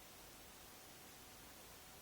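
Near silence: room tone, a faint steady hiss.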